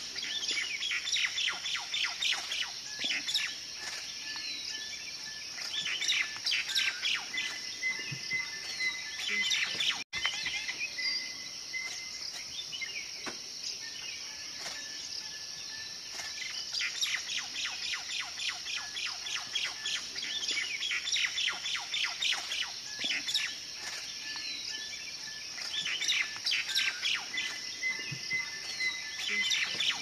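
Small songbirds chirping in quick, repeated trills with a few short held whistled notes, over a steady high-pitched insect drone. The sound cuts out for an instant about a third of the way through.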